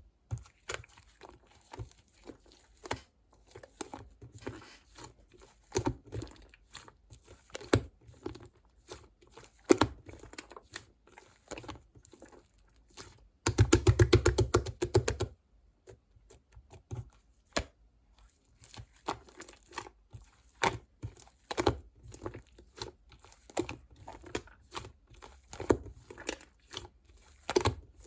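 Paper or plastic being handled by hand: crinkling and tearing with scattered taps and clicks. A short burst of music cuts in about halfway through.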